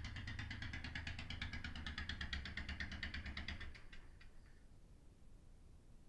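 Royal Enfield Classic 500's single-cylinder engine idling with the exhaust silencer removed, a rapid even beat from the open pipe. It cuts off abruptly a little under four seconds in, leaving only faint room tone.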